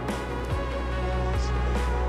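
Background music: held chords over a deep bass line, with a new bass note about half a second in and again near one and a half seconds.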